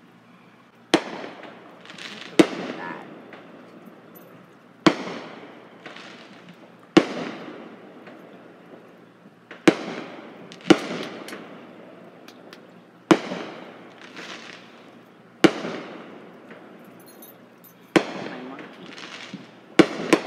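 Fireworks going off: about ten sharp bangs spaced one to three seconds apart, each followed by an echoing tail that fades over a second or so.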